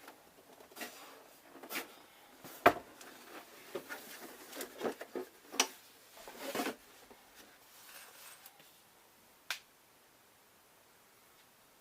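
Hands working on the keyboard's parts: scattered clicks, knocks and rustling, with the sharpest knock about two and a half seconds in and a last click near the end.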